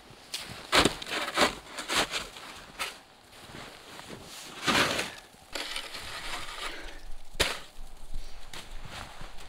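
Packed snow crunching and scraping in a string of irregular strokes, one longer crunch about halfway through and a sharp click later on.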